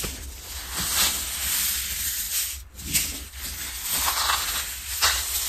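Homemade rain stick (a cardboard kitchen-towel roll with rice falling past crumpled aluminium foil inside) being tipped, the rice trickling through in a steady rush. The rush breaks briefly about two and a half seconds in as the tube is turned over, then starts again.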